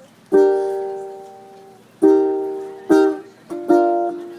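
Acoustic string instrument strummed in separate chords, each left to ring out: one chord about a third of a second in, then strokes at about two, three and three and a half seconds, the last few coming closer together.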